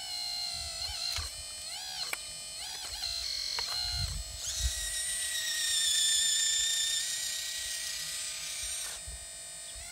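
Electric motor and hydraulic pump of a Huina hydraulic RC excavator whining, the pitch rising and falling as the boom and bucket move and the upper body slews. The whine rises to a higher, steadier and louder pitch about halfway through. A few low thumps come about four seconds in.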